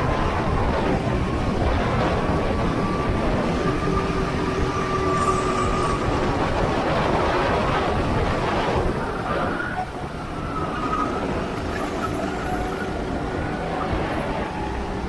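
Go-kart engine running under way in a race, with a steady rumbling noise under it. Its pitch rises and falls, and the level dips briefly about ten seconds in.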